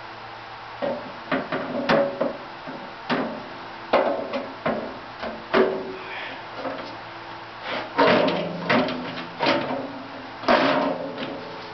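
Metal hood of a Woodmaster planer molder being set down and shifted into place on the machine: a string of irregular knocks and clanks, some ringing briefly, the loudest about eight and ten and a half seconds in.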